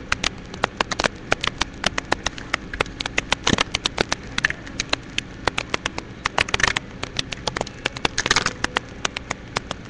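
Printer paper being folded and creased by hand: a dense patter of crackly clicks, several a second, with a few longer rustling crinkles.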